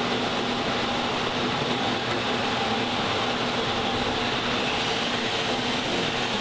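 Steady mechanical background hum and hiss, like ventilation or machinery running in a workshop, with no distinct tool clicks or knocks.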